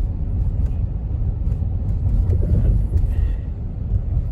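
Steady low rumble inside the cabin of a moving Jeep Wagoneer: road and drivetrain noise, with its twin-turbo Hurricane inline six kept very quiet by the stock exhaust.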